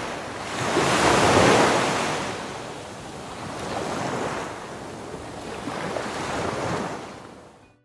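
Ocean waves surging as a sound effect: a big swell of rushing water about a second in, then two weaker swells, fading out at the end.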